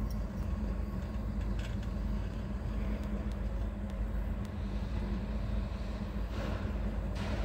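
A lathe running, turning the heavy strut barrel slowly so the dial indicator can read the bore's runout. It makes a steady low motor and gearbox hum with a faint steady tone above it, a few light ticks, and a short rise of hiss near the end.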